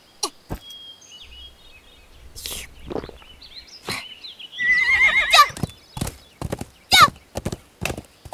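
A horse whinnies once, a long wavering call about five seconds in. It is followed by a quick run of hoofbeats as it sets off at a gallop.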